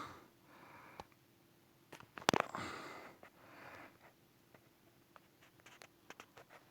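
Faint short sniffs and breaths with a few scattered sharp clicks, the loudest click and breath about two seconds in.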